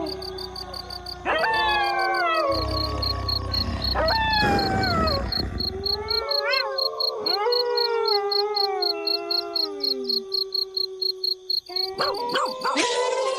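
Several wolves howling together in a chorus: long howls overlap and slide down in pitch, with short rising-and-falling yips in between. A fast, even, high-pitched pulsing runs in the background.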